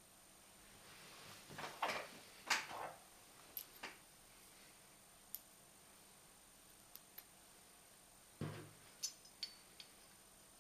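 Faint handling of the small steel parts of an 1860 Army percussion revolver being reassembled: a couple of short rustles and scrapes early, scattered light metallic clicks, and a duller knock about eight seconds in.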